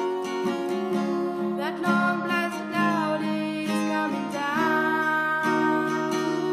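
Music: strummed acoustic guitar chords.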